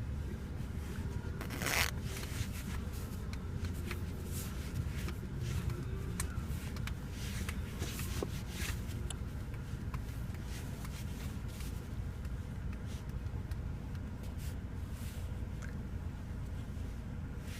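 Steady low rumble with scattered light rustling and clicking, and one short, sharp noise about two seconds in.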